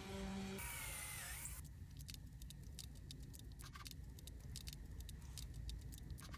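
Light, irregular clicks and ticks of hand tools and small metal hardware being handled during table-saw assembly, after a steady hum that cuts off about half a second in and a brief gliding whistle.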